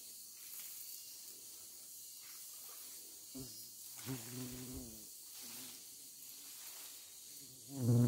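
Steady high hiss of forest insects. A man's low voice sounds briefly about three and a half seconds in, and again, louder, near the end.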